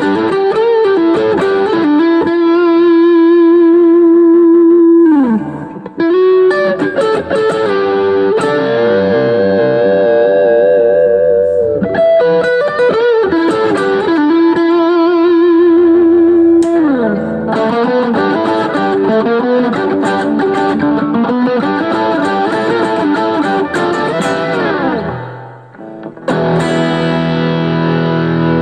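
Gibson Les Paul Classic electric guitar through an overdrive amp sound playing lead lines: held notes with wide vibrato and bends, and sliding runs down the neck. Near the end it moves to fuller chords. The sound is picked up in the room by a phone microphone.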